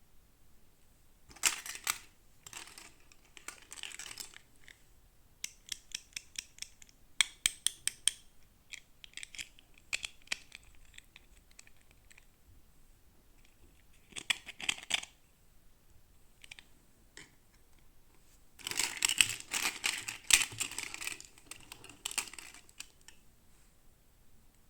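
Toy packaging being handled and opened by hand: irregular bursts of crinkling, scratching and tearing with runs of quick clicks, and a longer rustling burst near the end.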